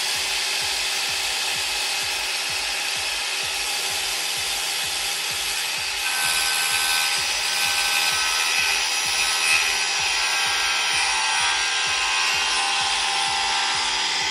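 DeWalt FlexVolt 60V cordless circular saw running at speed and cutting through a piece of baseboard. The cutting noise grows louder about six seconds in, and the saw stops at the end, its pitch falling as the blade winds down.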